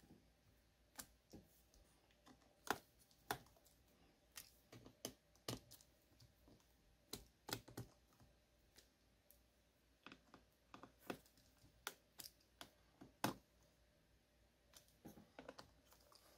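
Light, irregular clicks and taps of small screws and a screwdriver being worked into an open laptop's chassis, with the battery being handled in place.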